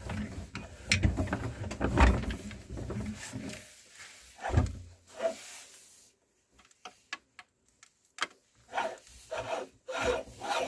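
Meat grinder crushing mini chocolate candies, with irregular crunching and scraping clicks. The crunching dies down about four seconds in, goes nearly quiet apart from a few scattered clicks, then picks up again near the end.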